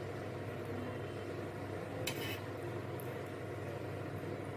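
Cooking oil poured in a thin stream into a non-stick kadai, a faint steady trickle, with one brief sharp sound about two seconds in.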